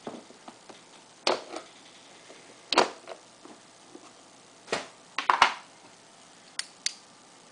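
Clear plastic tub with clip handles being handled and shifted on a wooden table: a string of sharp plastic knocks and clicks, loudest around three and five seconds in, with quiet between.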